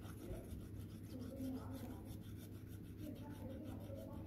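Faint scratchy rubbing of a pen tip worked back and forth over the paper of a magic colouring pad, over a steady low hum.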